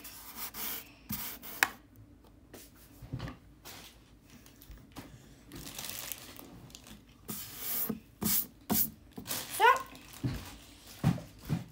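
A plastic bag crinkling and rustling as it is handled, with scattered taps and rubs on a desk. A brief voice sound comes near the end.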